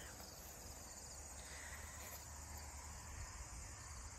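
Faint, steady insect chorus: a continuous high-pitched drone that does not change, over a low rumble.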